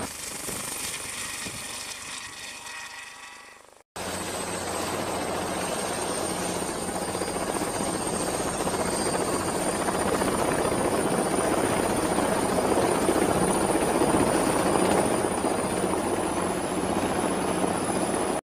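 Helicopter rotor and turbine sound, with a high steady whine over the rotor noise. It fades for the first few seconds and cuts off abruptly, then starts again and grows louder before holding steady.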